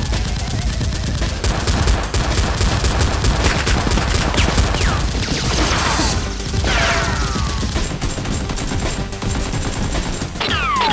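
Dubbed-in automatic gunfire sound effects for Nerf blasters, including a rapid burst of about five shots a second, over background music. Falling whistle-like sweeps come in the middle and again near the end.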